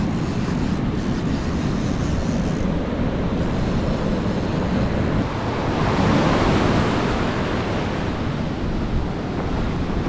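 Surf breaking and washing up a sandy beach, with wind buffeting the microphone. A wave breaks and rushes in louder about six seconds in.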